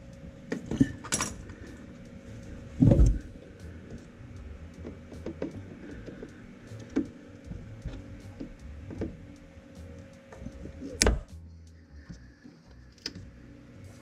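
Scattered clicks, knocks and rattles of hands and a hand tool working at a rubber hose and a zip tie under a car's underbody, with a dull thump about three seconds in and a sharp click about eleven seconds in.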